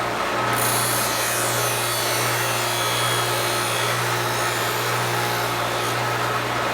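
Foley Belsaw 1055 Sharp All sharpening machine running with a steady motor hum while it grinds a knife blade held in a wooden jig; the hiss of the blade on the abrasive sets in about half a second in and keeps on.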